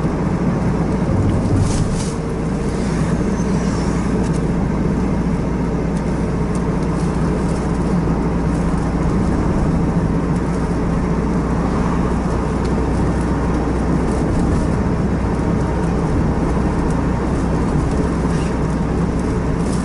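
A car cruising at a steady speed: continuous engine and tyre-on-road noise, heard from inside the cabin.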